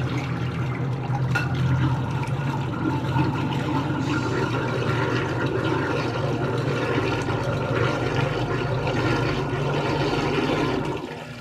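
Water running steadily, then shut off near the end.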